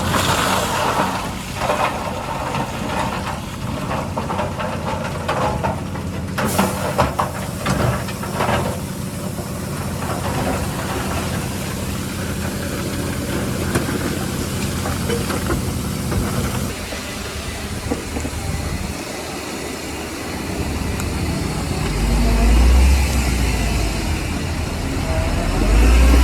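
Diesel engines of heavy earthmoving machinery running at a construction site, a steady low drone with a few knocks and clanks partway through. The engine note drops away about two-thirds of the way in, then deep low rumbles come twice near the end.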